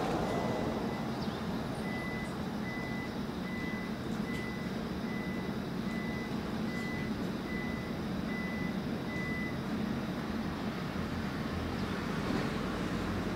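An electronic warning beeper sounding one high tone, evenly repeated a little faster than once a second, stopping after about nine and a half seconds, over a steady low rumble.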